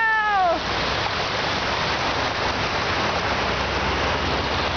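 Water rushing steadily over the rocks of a mini-golf course's artificial stream and waterfall. A child's high voice falls in pitch and stops about half a second in.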